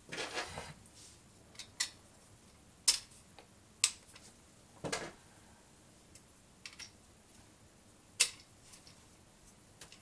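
Sharp clicks and light taps of metal mounting bolts being pushed through the holes of a plastic CPU cooler backplate and worked into line, about half a dozen spaced a second or so apart, with a short rustle of handling at the start.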